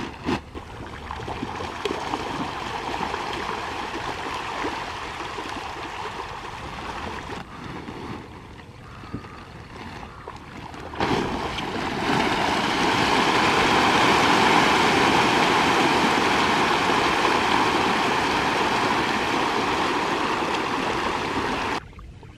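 Many catfish splashing and churning the pond surface as pellet feed is poured in from a sack: a rushing, gurgling water noise that grows louder and steadier about halfway through and cuts off abruptly near the end.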